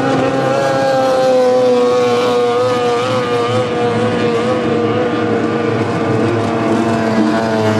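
Racing outboard motors running at full throttle as small race boats pass one after another: a loud, steady engine note that slowly falls in pitch as a boat runs by, with another engine joining near the end.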